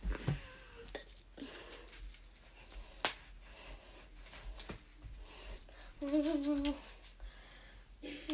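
A girl humming a short wavering note about six seconds in, and again at the very end, with scattered soft knocks and clicks of a small object being tossed and caught by hand. The sharpest knock comes about three seconds in.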